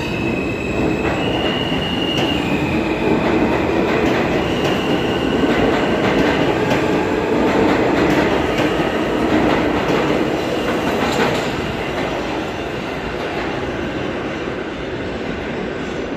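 R160 subway train pulling out of an underground station. Its propulsion whines in tones that step up in pitch in the first few seconds as it accelerates, then wheel and rail rumble builds and fades as the last car leaves.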